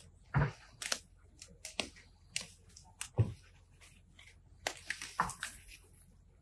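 Hand tool chopping and scraping at grass and soil in irregular strokes, roughly one a second, a couple of them landing with a dull thud.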